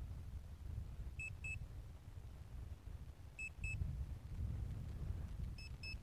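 Electronic double beeps from the drone's remote controller, one pair about every two seconds, a warning alert. Wind rumbles on the microphone underneath.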